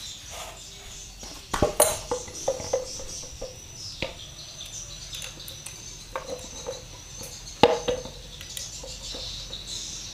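Scattered metal clicks, taps and clinks of a hand tool working on an automatic scooter's aluminium gearbox cover, undoing a bearing retainer. The sharpest knocks come about one and a half seconds in and again near eight seconds in, some with a short metallic ring.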